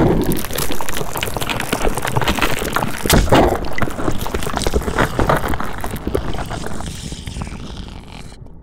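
Cartoon crash sound effect: a hit as the toy car strikes the barrier, then a few seconds of crackling and wet splattering as an egg breaks open, with a burst of louder cracks about three seconds in, fading away near the end.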